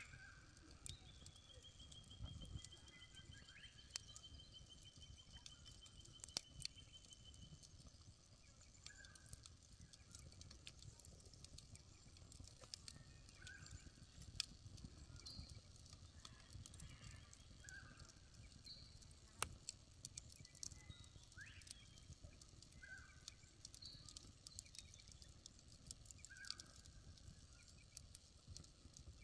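Faint crackling of a wood fire in a steel pot-belly fire pit, with scattered sharp pops. Birds call over it: a long, slightly falling trill in the first few seconds, then short chirps on and off.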